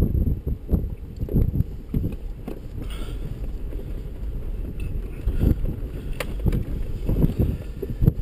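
Low rumble of a 4x4 crawling over a rocky trail, heard inside the cabin: the engine and drivetrain running with irregular knocks and jolts as the tyres roll over loose rock, and a little wind on the microphone.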